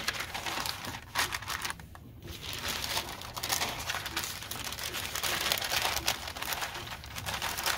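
The fabric sail of an R/C flying wing being folded by hand: irregular rustling and crinkling of the sail material, with a short pause about two seconds in.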